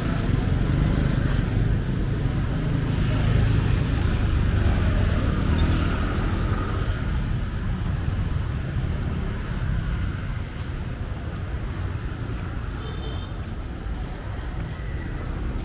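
Street traffic passing close by: a steady low rumble of vehicles that is loudest in the first half and eases after about ten seconds.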